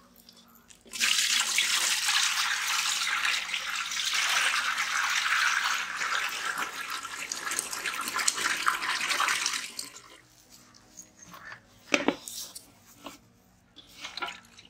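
Water poured steadily from a plastic pot into a large metal cooking pot, filling it for about nine seconds and then stopping. A few short splashes follow as raw whole chickens are put into the water to be washed.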